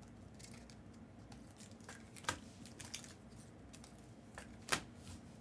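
Faint rustling and small clicks of trading cards and pack wrappers being handled on a table, with two sharper clicks: one a little over two seconds in, one near the end.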